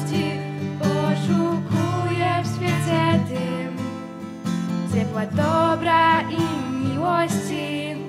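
Two girls singing a song with guitar accompaniment, the sung phrases rising and falling over steady chords.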